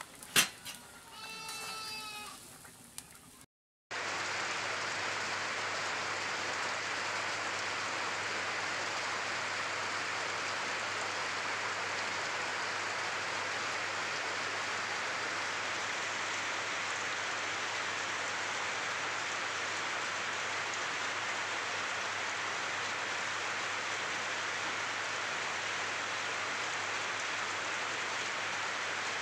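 Heavy, steady rain pouring, with water running off a roof edge. In the first few seconds, before the rain, there is a click and a short wavering bleat.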